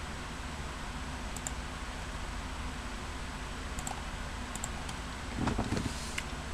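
Steady hiss of room noise with a few faint clicks, like a computer mouse or keyboard, then a short spell of rustling and bumping near the end as a hand reaches right up to the webcam.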